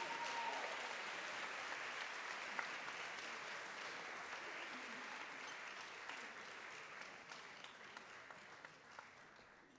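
Audience applauding, the clapping fading away gradually over the last few seconds.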